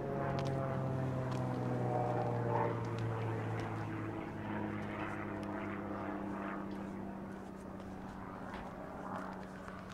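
A passing engine drone: several steady tones slide slowly down in pitch and fade in the second half. Footsteps on a sanded, snowy walkway tick along underneath.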